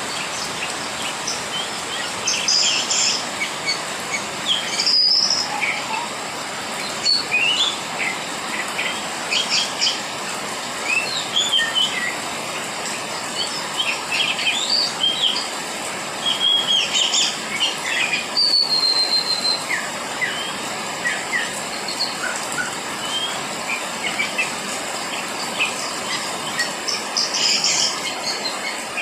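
Steady rain falling, with many short bird chirps and calls over it throughout.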